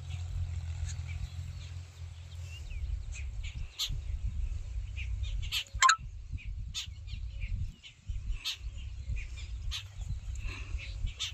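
Short, scattered bird chirps over a steady low rumble of wind on the microphone, with one sharper, louder call just before the middle.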